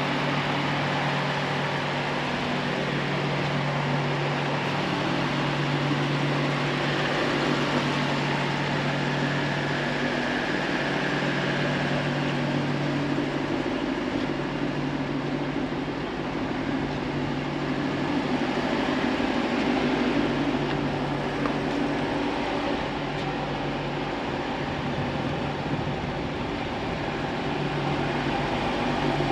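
Lexus LC500's 5.0-litre V8 idling steadily.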